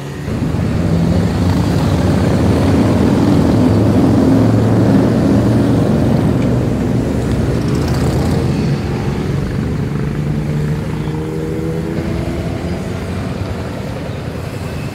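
Motorcycle engine running with a loud, deep rumble that comes in suddenly, then slowly eases off after about five seconds.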